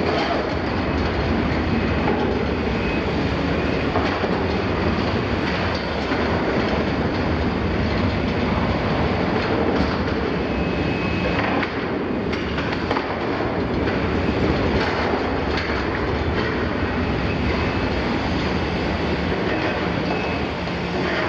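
Liebherr 974 demolition excavator's diesel engine and hydraulics running under load as its long-reach demolition attachment tears at the steel walls of an oil tank, with metal screeching, grinding and clanking. A few sharper metallic cracks come a little past halfway.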